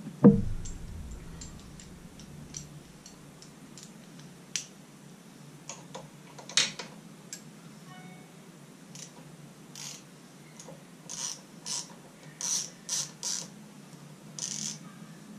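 Hand tools working on an outboard motor's powerhead: a heavy thump just after the start, then scattered metallic clicks, and a run of about six short rasping strokes near the end.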